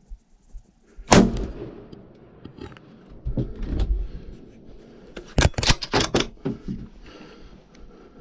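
A single shot from a Ruger American .30-06 bolt-action rifle about a second in, the report trailing off. Low rumbling handling noise follows, then a quick run of sharp clicks around five to six seconds in.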